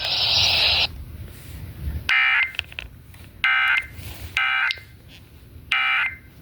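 Emergency Alert System digital data tones over FM radio: four short screeching bursts of two-tone data, each about a third of a second, marking the end of a severe thunderstorm warning. Radio hiss cuts off about a second in.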